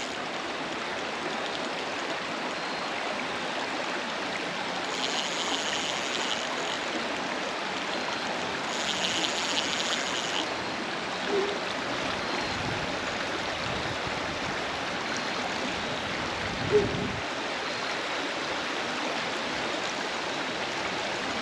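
Shallow creek water running over rocks in a steady, even rush. Two brief higher rattling sounds come about five and nine seconds in, and two soft knocks near the end.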